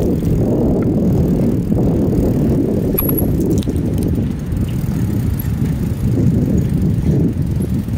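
Riding noise from a moving bicycle: wind rumbling over the microphone with tyre noise on the pavement, a steady low fluttering rush. A few faint clicks about three seconds in.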